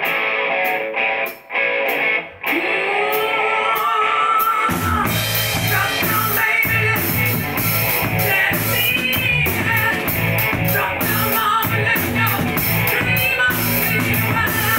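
A rock band playing live: an electric guitar riff in stop-start phrases, then about five seconds in the bass and drums come in for a full-band funk-rock groove, with a harmonica playing over it.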